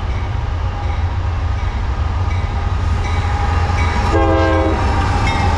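CSX GE AC44CW diesel locomotive approaching under power, its engine rumble growing louder, with one short horn toot about four seconds in given as a friendly hello salute.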